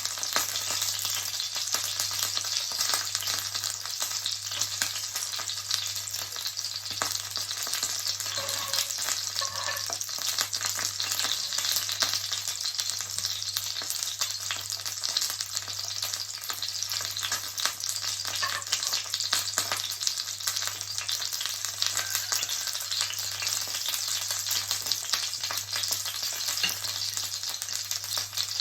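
Salmon with its butter-garlic sauce sizzling in a frying pan: a steady, dense crackle of frying, with a steady low hum underneath.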